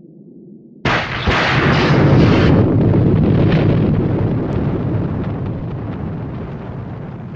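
Thunder sound effect: a sudden sharp thunderclap about a second in, with a second crack just after it and crackling for about two seconds, then a long low rumble that slowly fades.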